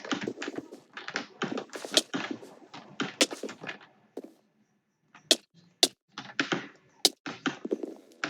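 Typing on a computer keyboard: a fast, irregular run of key clicks. The typing pauses for about a second near the middle, then resumes with a few sharper, louder strokes.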